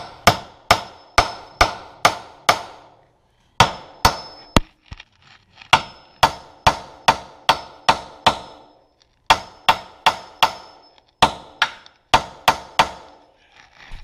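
Hammer striking a freshly welded steel chain hook on a skid-steer bucket to test the weld: sharp ringing metal blows about two a second, in five bursts of three to seven strikes with short pauses between.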